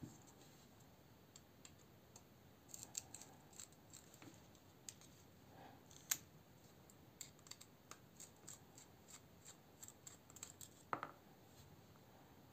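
Faint small metallic clicks and scrapes of a screwdriver tip and folding knife being handled as the knife is taken apart, a scattered run of light ticks with one sharper click about six seconds in.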